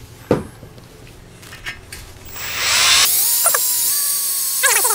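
Electric hand drill spinning up about two and a half seconds in, then running steadily at speed with a held whine as its bit bores into a steel tube. A single knock comes just after the start.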